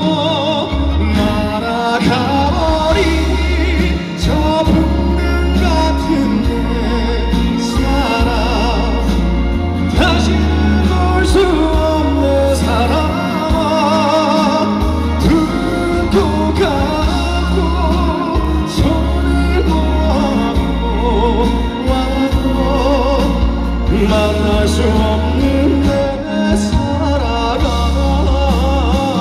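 Male voice singing a slow ballad into a microphone over full band accompaniment, with a heavy bass line underneath.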